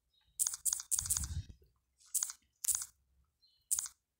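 A series of short, close crunching sounds, about six, spaced irregularly.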